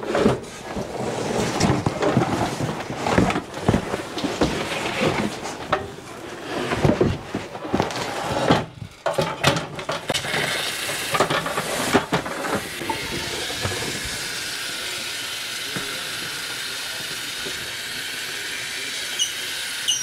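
Cardboard boxes and a metal step ladder being shifted and set down: rustling cardboard with many sharp knocks and clatters. About twelve seconds in the handling stops and a steady hiss takes over.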